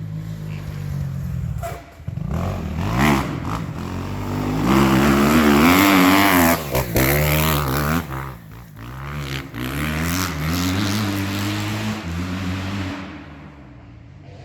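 Kawasaki 250 motocross bike engine revving up and down through the gears as the bike rides by. It is loudest about five to eight seconds in, then settles and fades near the end.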